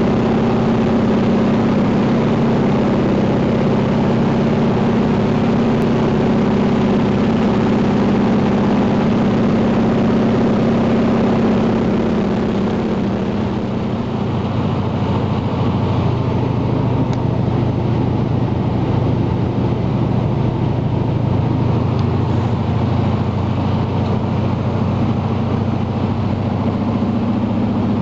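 Steady drone of a de Havilland Canada DHC-2 Beaver's radial engine and propeller, heard inside the cockpit in flight. About twelve seconds in the drone drops lower and duller, and the higher note returns near the end.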